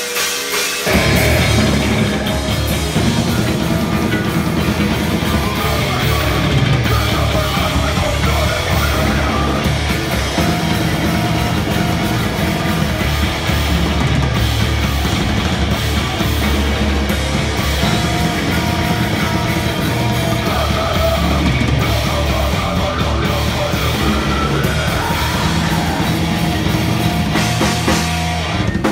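Live heavy rock band playing loud and distorted: drum kit pounding under electric guitars, with a vocalist shouting into the microphone. The full band comes in about a second in.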